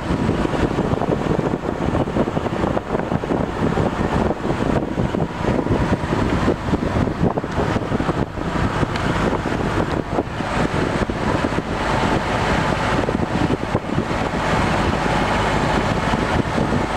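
Engine of a motorized outrigger boat running steadily under way, mixed with wind noise on the microphone.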